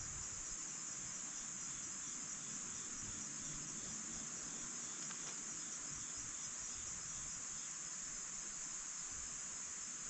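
Steady high-pitched insect chorus, with a softer chirp repeating at an even pace underneath.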